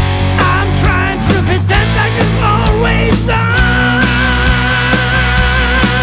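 Rock song with guitars, bass and drums. A high lead line bends through quick phrases, then holds one long note with vibrato from about halfway.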